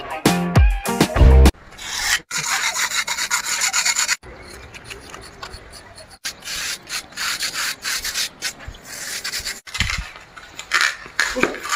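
A short stretch of music, then rough rubbing or scraping in quick repeated strokes, broken by a few brief silent gaps.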